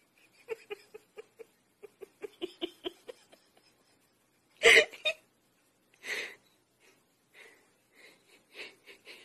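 A person giggling in short, breathy, hiccup-like bursts, with one louder burst of laughter about halfway through.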